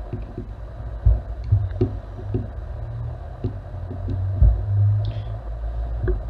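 Small hand screwdriver driving a screw into an air pistol, with faint clicks as it turns and soft low thumps from handling on the bench, two heavier ones about a second in and near the middle; a steady low hum runs underneath.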